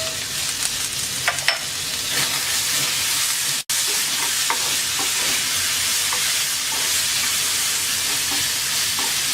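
Grated coconut and onion sizzling in a little hot oil in a pan, stirred with a spatula with faint scraping ticks. The sizzle cuts out for an instant a little over three and a half seconds in.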